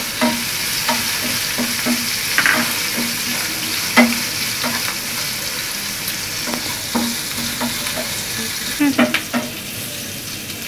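Sliced onions and green chillies sizzling in hot oil in an aluminium karahi, nearly fried. A wooden spatula stirs them, knocking and scraping against the pan in a steady rhythm of about three strokes a second.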